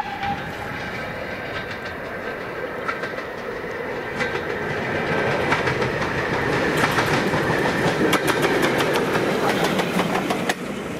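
Steam locomotive approaching and passing close by, its running noise growing louder, then a rapid run of wheel clicks over the rail joints as it goes past. The sound cuts off suddenly near the end. A brief whistle-like tone sounds at the very start.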